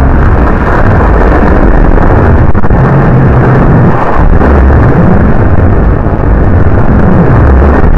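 Loud, heavily distorted and clipped audio: a constant crackling roar with everything above the middle of the range cut off, and low droning tones underneath.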